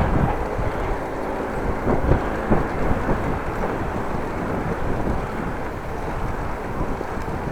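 Steady wind rumble buffeting an action camera's microphone during a bike ride.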